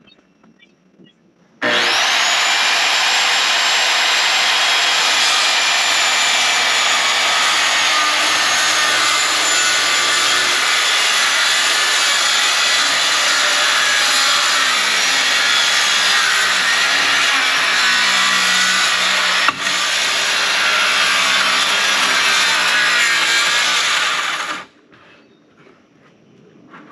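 Corded circular saw cutting a sheet of plywood roof decking in one long, steady cut. The motor's whine rises as it spins up about a second and a half in, there is a brief hitch in the cut near the end, and the saw cuts off sharply a couple of seconds before the end.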